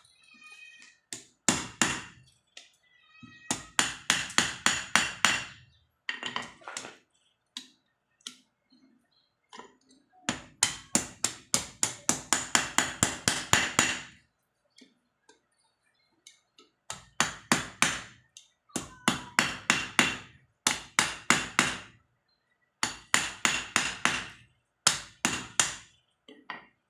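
Hammer striking steel in runs of quick blows, about four or five a second, each with a metallic ring. There are several runs with short pauses between them, the longest lasting about four seconds in the middle.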